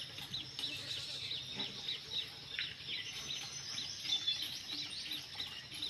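Small birds chirping rapidly and continuously, many short high chirps overlapping, over a steady high hiss.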